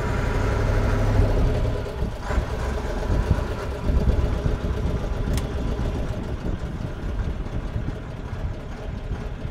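Dennis RS130 fire engine's engine running, heard from inside the cab as the truck drives off. It is loudest for the first second and a half, dips about two seconds in, then runs on slightly quieter.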